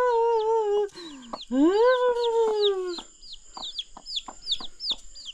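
Mother hen giving two long, drawn-out calls, each rising then slowly falling, alarmed at her chicks being picked up; her chicks peep over them the whole time with short, high, falling peeps.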